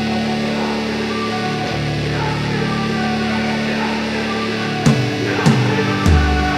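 Background music: held guitar chords, with drum hits and a pulsing bass coming in about five seconds in.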